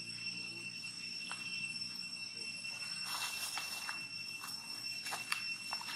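Forest ambience: a steady high-pitched insect drone, with a scatter of short clicks and rustles from about three seconds in.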